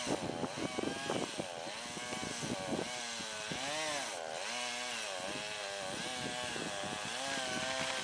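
Two-stroke chainsaw running at high revs while cutting, its pitch rising and falling over and over and sagging under load around the middle before picking back up.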